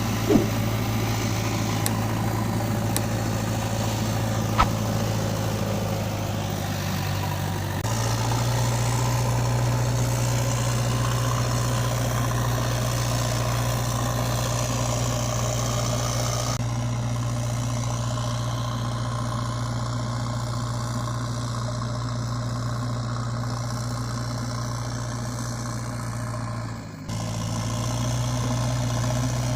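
A steady, low engine-like hum like a vehicle idling, with abrupt changes in its tone about a quarter of the way in and a brief drop near the end.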